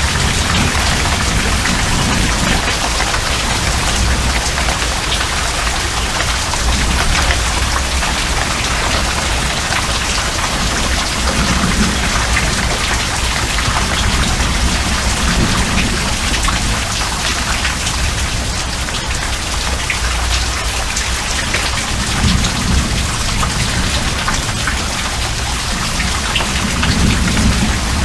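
Heavy rain pouring down steadily on the ground and surfaces, with low rumbles swelling now and then.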